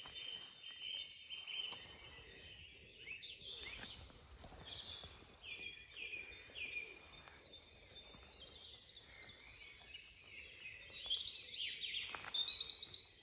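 Dawn chorus of songbirds singing at once: many overlapping high whistled phrases and trills, with a run of three short falling phrases near the middle and a louder burst of song near the end.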